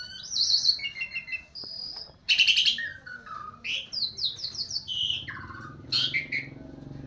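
A songbird singing a quick, varied string of whistled notes, trills and chirps, several of them sliding down in pitch, with one harsh buzzy note about two seconds in.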